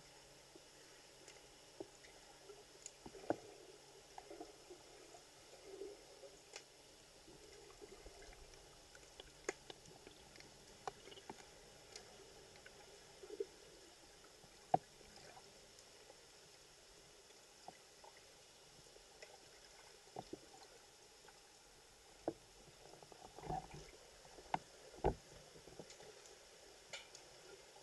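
Muffled underwater pool sound picked up by a submerged camera: a steady faint hiss with scattered sharp clicks and a few soft knocks, the loudest of them bunched together about three-quarters of the way through.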